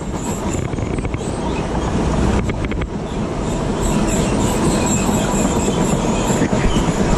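Freight train of empty container flat wagons rolling past close by: a steady rumble of wheels on rail, with a few sharp clacks about two and a half seconds in and a thin high tone above it.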